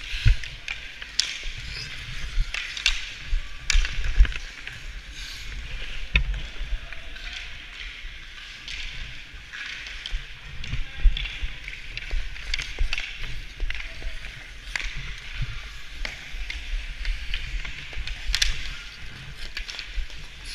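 Hockey skate blades scraping and carving the ice in uneven strokes, with sharp clicks of sticks and puck, over a low rumble of wind and motion on the moving camera's microphone.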